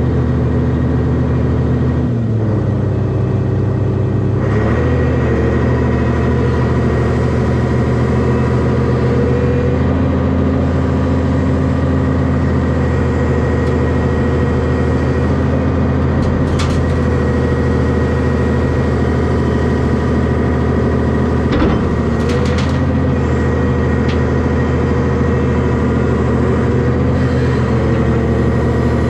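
Hyundai hydraulic excavator's diesel engine running steadily with a high hydraulic whine, the engine note dipping under load a couple of times as it works. A few short sharp knocks sound over it, about two-thirds of the way through.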